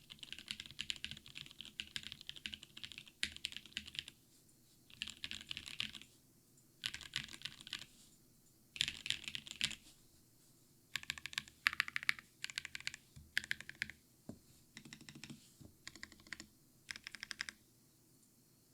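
Mechanical keyboard with Gateron Mountain Top switches, a polycarbonate plate and case and plate foam, typed on in quick bursts of rapid keystrokes with short pauses between them; the typing stops near the end.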